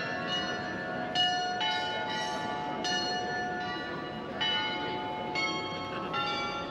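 The Swiss Glockenspiel's tuned bells playing a slow tune, one note struck about every half second to second, each ringing on into the next, over low street noise.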